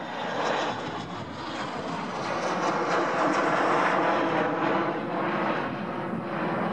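Ilyushin Il-76TD-90VD's four PS-90A turbofan engines running at taxi power, a steady rushing jet noise that swells to its loudest about halfway through and eases a little near the end.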